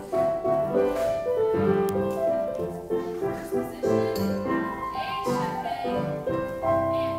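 Piano music for a ballet class exercise, a melody of sustained notes over lower notes changing every second or so.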